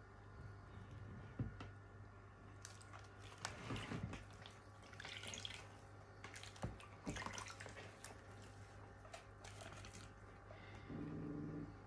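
Wet splashing, dripping and small clicks of freshly churned butter clumps and buttermilk being worked with an electric hand mixer's beaters in a plastic basin, over a faint steady low hum. A short low tone sounds near the end.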